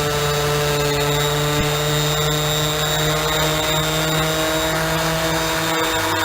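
Electric random orbital finishing sander running steadily with a constant motor whine, buffing an exhaust pipe with a polishing pad.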